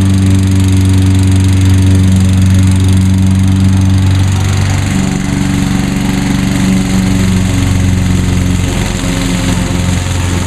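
Walk-behind lawn mower's Honda GCV160 single-cylinder engine running steadily at cutting speed, its note shifting slightly about halfway through as the load changes.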